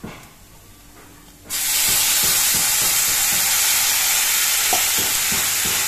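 A spatula scrapes diced potatoes frying in a hot pan. About one and a half seconds in, water is poured into the pan and it breaks into a loud, steady sizzling hiss, with the spatula knocking against the pan now and then: water going in to turn the fried potatoes into a thin gravy.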